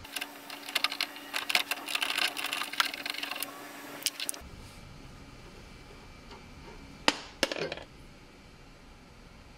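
Hand wrenches clicking and clinking against the sway bar link nut and stud in a quick, irregular run for the first three and a half seconds. Two sharp metallic clicks follow about seven seconds in.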